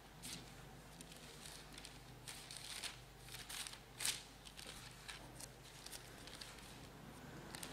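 Thin Bible pages being turned and leafed through: a run of short, soft papery rustles and flips, the loudest about four seconds in, as a passage is searched for.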